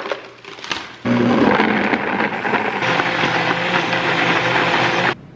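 A few clicks as the countertop blender is set up, then about a second in its motor starts and blends frozen berries into a smoothie, running steadily and growing brighter partway through. It cuts off suddenly near the end.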